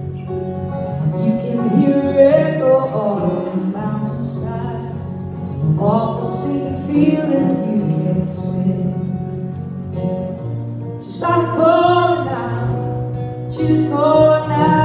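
Live music: a woman singing over acoustic guitar, in sung phrases with short gaps where the guitar carries on alone.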